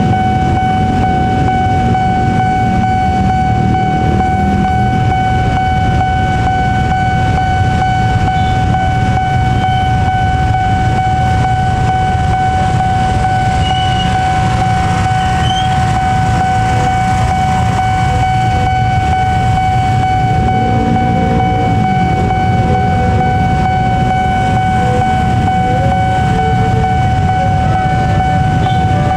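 Railway level-crossing warning alarm sounding a steady high tone, over the low rumble of idling motorcycle and car engines.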